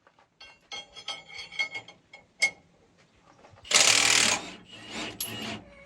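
Quick metallic clicks and clinks, like a ratchet or loose steel parts being worked during adjustment of a baler's hitch or frame, ending with a sharp clack. This is followed by a loud burst of rushing, hissing noise lasting under a second, then a quieter stretch of the same noise.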